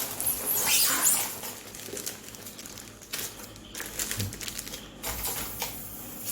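Small metal screws clinking against each other as they are handled, with a short rustle of packaging near the start and scattered light clicks after.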